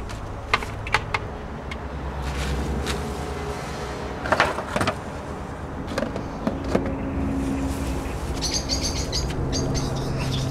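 Knocks, clicks and rustling from tending a worm-compost bin and handling its lid, with a louder rustle about four seconds in, over a steady low hum. Near the end a bird chirps rapidly several times.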